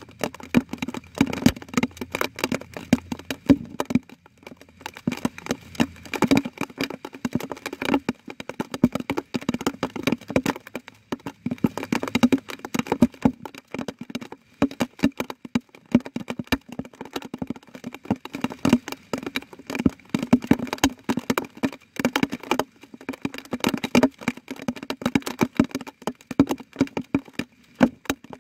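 Water drops falling like rain in dense, irregular taps, a steady scatter of small hits throughout.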